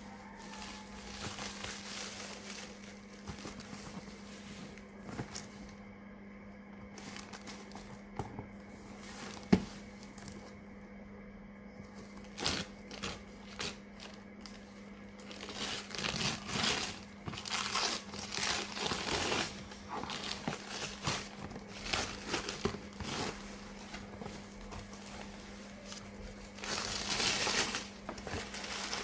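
Packaging being handled: crinkling, rustling and tearing of plastic and paper wrapping, in irregular bursts that get busier in the second half, over a steady low hum. One sharp click about ten seconds in.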